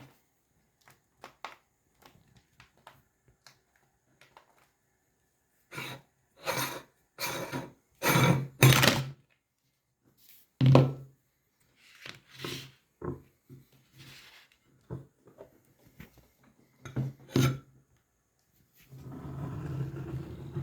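Meat grinder working Choco Pie cookies through: a run of short grinding and crunching strokes with thuds, separated by silent gaps, and a longer stretch of grinding near the end.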